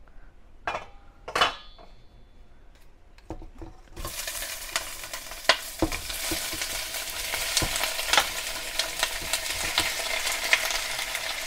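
Raw shell-on shrimp going into hot olive oil in a frying pan: after a couple of sharp knocks, the oil bursts into a loud sizzle about four seconds in and keeps crackling and spitting as more shrimp are scraped in with a wooden spoon.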